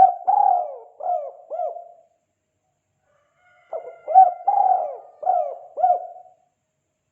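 Spotted dove (tekukur) cooing in the 'kuk 2' call variety: two phrases of four or five hollow notes each, the first already under way at the start and the second beginning about halfway, with silence between them.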